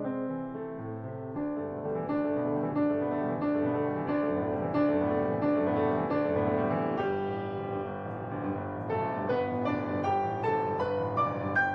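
Background piano music; near the end a run of single notes climbs higher.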